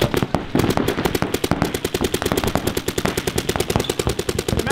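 Paintball markers firing a rapid, unbroken stream of shots, many a second, as in an all-out firefight during a tournament point.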